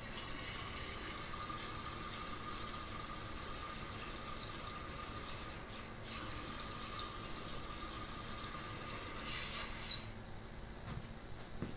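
Water running steadily into the sewer drain to rinse the inspection camera's lens, a continuous hiss with a brief dip partway through that stops near the end.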